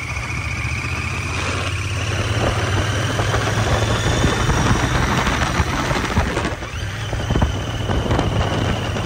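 Royal Enfield Interceptor 650's stock parallel-twin engine running steadily on the move, with a high whistle riding over it that climbs slowly in pitch, breaks off briefly about six seconds in and comes back at a steady pitch.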